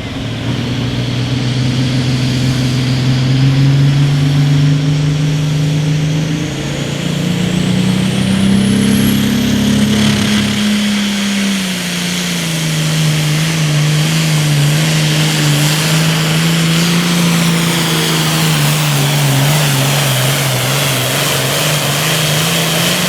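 Case IH 8940 tractor's turbocharged six-cylinder diesel running at full power while it pulls a weight-transfer sled. The engine's pitch rises about seven seconds in, then drops at about twelve seconds and holds lower, wavering slightly as the load comes on. A high whine climbs steadily through the first ten seconds.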